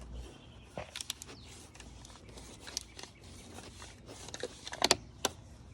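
Light handling noises: scattered small clicks and rustles, with a few sharper clicks about five seconds in.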